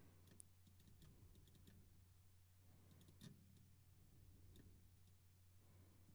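Near silence: a low steady hum with faint, scattered computer-mouse clicks, irregularly spaced, as points on an envelope are edited.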